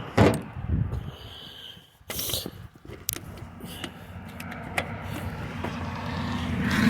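A few sharp metallic clicks and knocks from a torque wrench being set on a wheel's lug nut and checked at 100 ft-lb. A steady low rumble grows louder toward the end.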